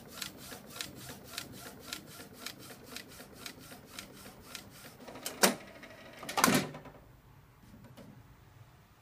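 Inkjet CD printer printing: the print-head carriage shuttles back and forth with a regular tick about twice a second. Then come two loud clunks about a second apart as the mechanism drives the disc tray out, and the printer stops.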